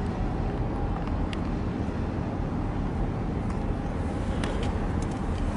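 Steady low outdoor rumble of harbour-side noise, with a few faint clicks.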